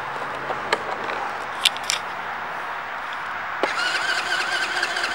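A few light clicks, then about three and a half seconds in the Kayo Storm 150 ATV's small four-stroke engine starts and settles into a steady idle.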